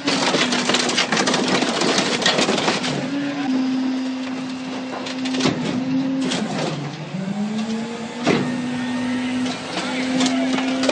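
Rear-loading garbage truck's hydraulic packer crushing a car in its hopper: a steady engine and hydraulic drone under constant crackling and crunching of the car body. The drone sags in pitch about seven seconds in as the packer strains, then recovers, with loud sharp cracks at about five and a half and eight seconds in.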